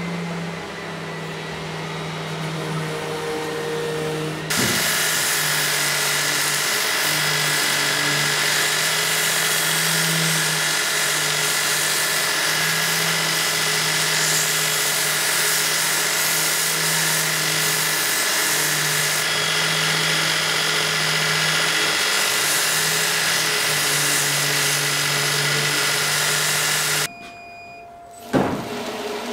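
Belt grinder running with a wooden axe handle pressed against its sanding belt: a steady motor hum under the hiss of abrasive on wood. It starts suddenly about four seconds in and drops away shortly before the end, followed by a few knocks.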